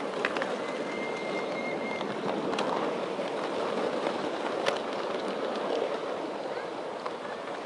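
A miniature railway train running from on board: steady rolling rumble of its wheels on the rails, with scattered sharp clicks over the track. About half a second in, a thin high tone holds for about a second and a half.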